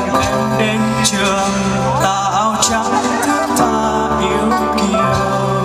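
Live Vietnamese pop ballad: a young man singing into a microphone over keyboard, acoustic guitar and cajón accompaniment, with a steady bass line and light percussion hits.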